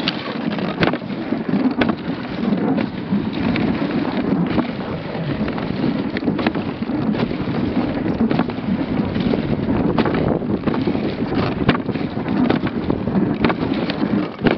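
Dogsled runners sliding over snow, a steady rushing hiss broken by irregular sharp knocks and rattles from the sled, with wind on the microphone.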